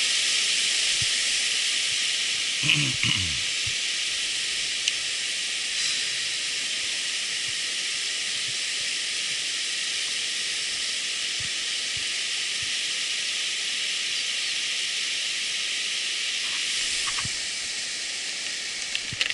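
Steady rushing hiss of river water pouring over a small weir and through rapids. About three seconds in, a brief sound falls in pitch over it.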